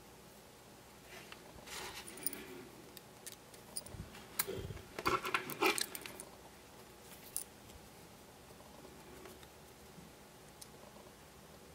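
Small metal parts and a screwdriver being handled on a workbench: a run of light clicks and rattles, busiest about halfway through, then quiet handling.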